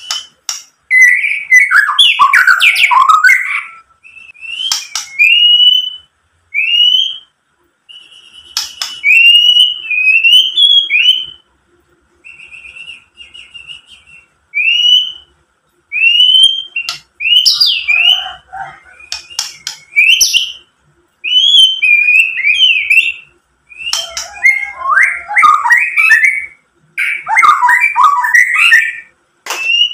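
White-rumped shama singing: a string of short, rising whistled notes about one a second, broken by rapid jumbled chattering phrases at the start, in the middle and near the end.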